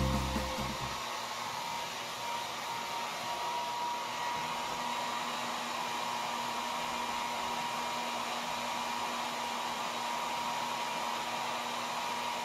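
Handheld hair dryer running steadily, blowing air to dry a freshly bathed dog's fur.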